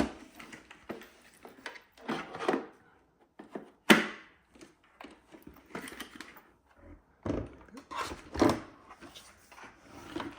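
Objects being handled and set down on a hard surface: irregular knocks and thunks mixed with short scraping and rustling, with a sharp knock about four seconds in.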